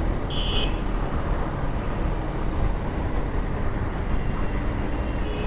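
Motorcycle running in traffic with wind rushing over the microphone, a steady low rumble. A short high-pitched beep, like a horn, sounds about half a second in.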